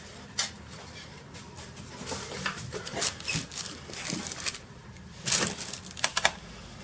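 Light clicks, taps and short scrapes of hands and a tool working on the exposed internal parts of an open laptop, in irregular clusters.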